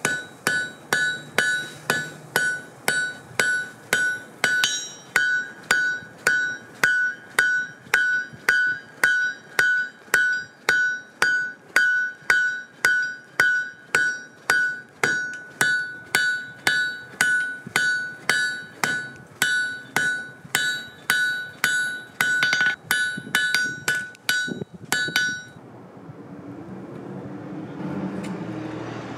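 Hand hammer forge-welding a folded wrought-iron bar on the anvil at welding heat, in steady blows about two a second. Each blow brings a high ringing note from the anvil. Near the end the hammering stops, leaving a low rushing noise.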